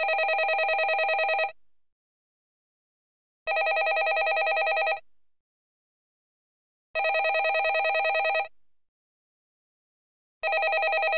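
Landline telephone ringing: four rings of about a second and a half each, repeating about every three and a half seconds with silence between, the last ring still going at the end.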